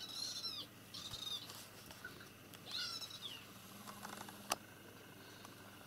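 Kitten squeaking three times with short, high-pitched cries that rise and fall in pitch, while play-wrestling with an adult cat. A sharp click comes near the end.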